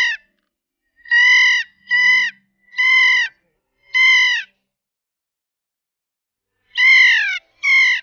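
Kea calling: loud, ringing parrot cries, each about half a second long and dropping in pitch at the end. Four come at about one a second, then after a pause of about two seconds, two more near the end.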